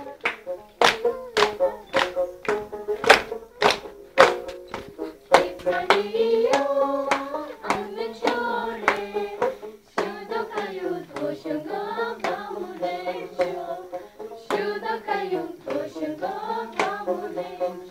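Rhythmic hand clapping at about two claps a second, joined by voices singing a folk song in unison from about five seconds in.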